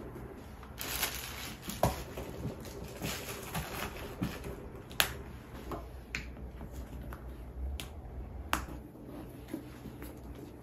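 A leather handbag being packed and handled on a tabletop: soft rustling with about five sharp clicks scattered through, the loudest about two and five seconds in.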